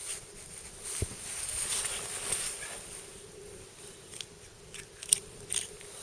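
BR Bushcrafter knife blade cutting into deer meat with crunchy, rasping slices. A knock comes about a second in, and several sharp clicks follow in the second half, the loudest about five seconds in.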